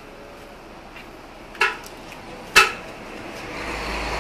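Two sharp clacks with a short ring, about a second apart, from a bundle of bamboo incense sticks and a wooden paddle striking a wooden rolling board. Near the end the rising noise of a passing motor vehicle comes in.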